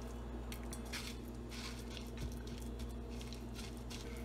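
Panko breadcrumbs being pressed by hand onto a raw pork cutlet on a plate: faint, scattered crunching and rustling of the crumbs. Under it is a steady low hum.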